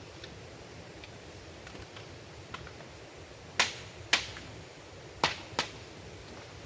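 Four sharp clicks or knocks in two pairs over a steady hiss of rain and river water.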